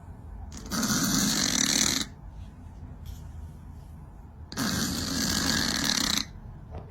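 Domestic cat snoring in its sleep: two long snores, each about a second and a half, roughly four seconds apart.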